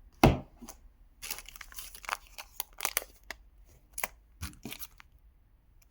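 Hands sorting through small phone spare parts: a knock about a quarter second in, then scattered crinkles and light clicks.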